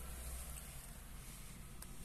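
Cats chewing dry kibble: faint, scattered crunches, one clearer near the end, over a steady low hum.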